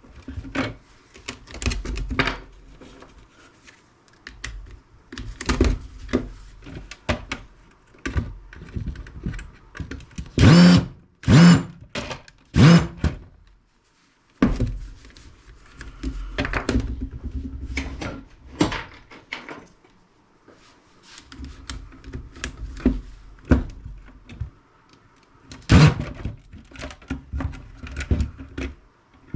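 Screws being backed out of a plastic bug zapper housing with a power driver, its motor whirring in short runs, amid knocks and clatters of the plastic case being handled. Three loud thunks come a little under halfway through, and another near the end.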